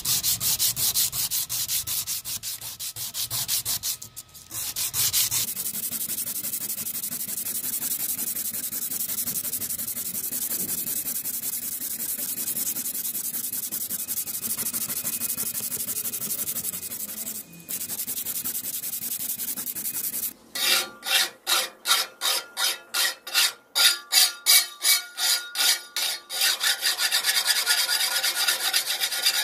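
Sandpaper rubbed by hand back and forth over the rust-pitted steel blade of an antique butcher's cleaver in fast scraping strokes, to take off the rust, with two short pauses. About twenty seconds in, it gives way to a hand file stroking along the blade, about two strokes a second.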